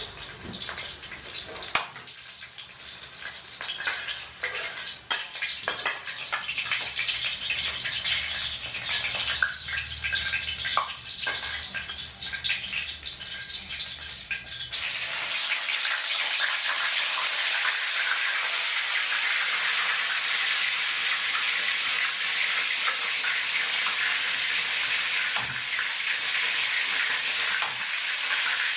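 Hot oil in a wok crackling and spitting irregularly as garlic cloves fry, with a few sharp clicks. About halfway through it changes abruptly to a louder, steady sizzle as a whole fish fries in the oil.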